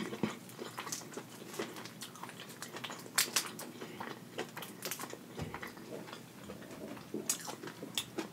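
Eating sounds: scattered wet clicks and crackles of cooked shrimp being peeled by hand, with chewing.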